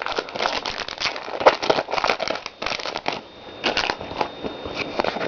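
Foil booster-pack wrapper crinkling and crackling in the hands as it is opened, with irregular small crackles and clicks throughout.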